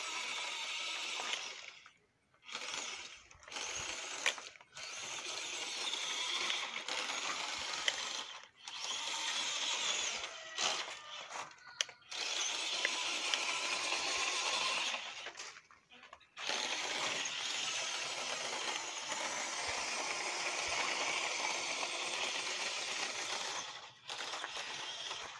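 A small RC crawler truck's electric motor and gearbox whirring while it drives, in runs of a few seconds that stop and start again about eight times.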